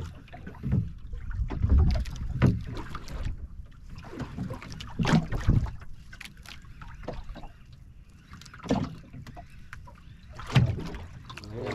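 Sea water slapping and splashing against the hull of a small outrigger boat in irregular surges, with wind buffeting the microphone.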